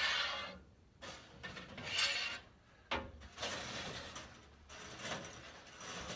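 Repeated scraping and rasping inside a fireplace flue, about five grating strokes in a row, the loudest near the start and about two seconds in.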